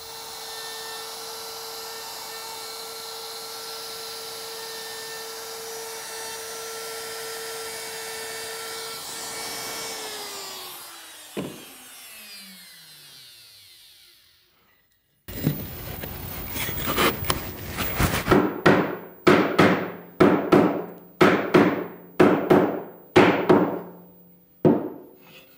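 Handheld router with an 1/8-inch roundover bit running with a steady high whine, then switched off and spinning down, its pitch falling, about ten seconds in. After a short gap comes a run of rhythmic scraping strokes, roughly one or two a second.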